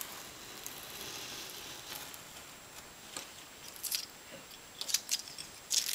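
A thin scalpel blade drawn along a ruler, slicing through the endpaper paper with a soft, scratchy hiss, followed by several light, sharp clicks and taps in the second half.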